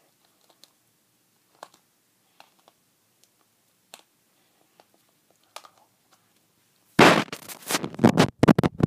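Zelfs toy blind bag, a shiny foil wrapper, crinkling and crackling as it is handled and torn open. Loud irregular bursts start about seven seconds in, after a few faint clicks.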